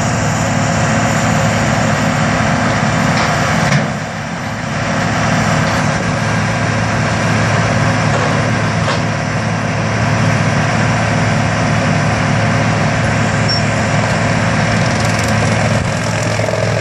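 Tracked horizontal wood grinder running steadily under load, its diesel engine and mill grinding tree stumps fed in by an excavator's grapple, with the excavator's engine working alongside. The level dips briefly about four seconds in.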